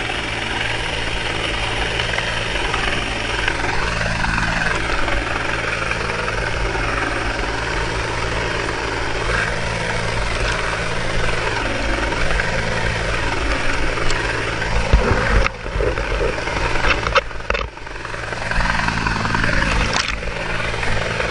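Helicopter hovering close overhead: a steady rotor and engine roar, with rotor downwash buffeting the microphone and sea spray. About three quarters of the way through, the sound cuts out and changes abruptly for a moment, as water washes over the microphone.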